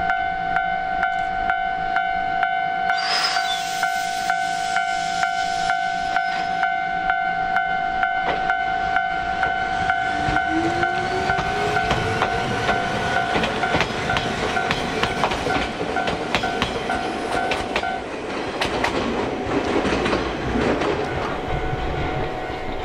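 Ichibata Electric Railway 2100 series electric train sounding its horn briefly, then pulling away: its motor hum rises in pitch as it accelerates, and its wheels clack over the rail joints as the cars pass. A level-crossing bell rings steadily throughout and stops about eighteen seconds in.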